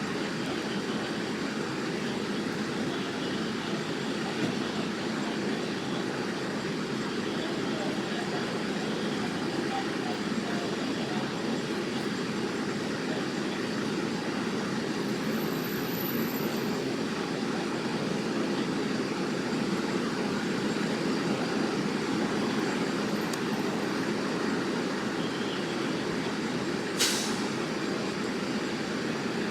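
Steady noise of running vehicles in a street, with one sharp click near the end.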